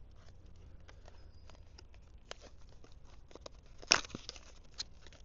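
Product packaging being opened by hand: scattered light rustling and small clicks, with one sharp snap about four seconds in.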